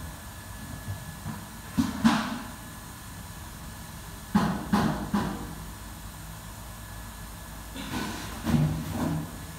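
A few short knocks and clatters in three brief clusters, over a faint steady background hum.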